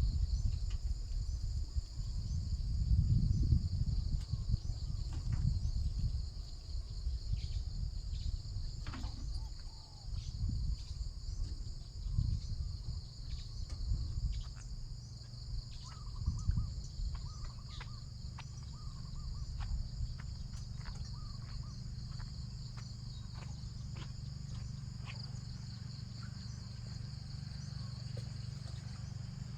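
Insects chirring in a steady outdoor chorus, with a few faint clicks. Under it is an uneven low rumble that settles into a steady low hum for the last third.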